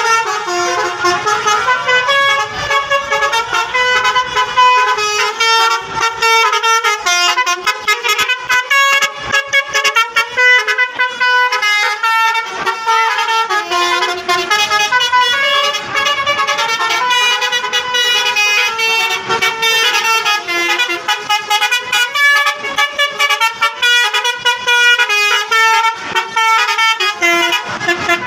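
Telolet bus horn: a multi-tone air horn playing a fast melody of short notes that step up and down in pitch without a break.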